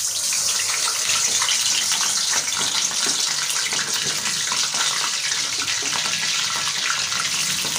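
Raw chicken pieces frying in hot oil in an iron karahi: a steady sizzle.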